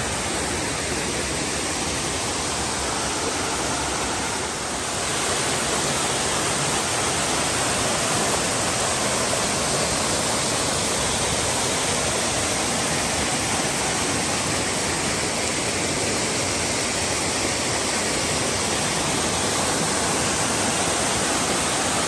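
Laurel Falls, a waterfall cascading over rock ledges close by: a steady, loud rush of falling water.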